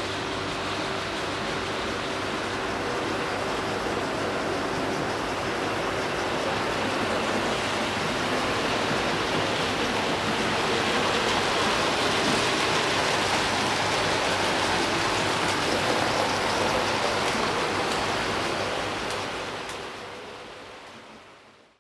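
Hornby OO gauge model locomotive with a tender-mounted motor running along the layout: a steady rushing rattle of wheels on rail with a faint motor hum under it. It grows a little louder towards the middle and fades out near the end.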